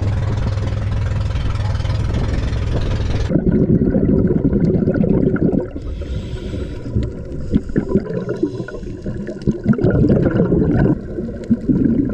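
A dive boat's engine running steadily for about three seconds, then a sudden switch to underwater sound: the low gurgling and bubbling of scuba divers' exhaled air, rising and falling in irregular surges.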